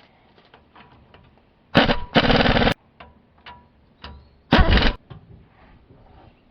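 Impact wrench hammering in short bursts: two bursts close together about two seconds in, then a shorter third burst about halfway through. Light clicks and knocks of tools being handled in between.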